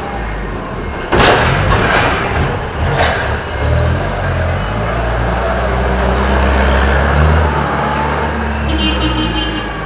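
Forklift driving past close by and on away, its engine running and swelling in the middle, with a sudden loud knock about a second in and lighter knocks about a second and two seconds later.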